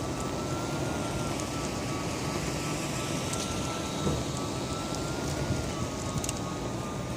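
Electric unicycle running, with a faint high motor whine that wavers slightly in pitch over a steady rumble of tyre and wind noise.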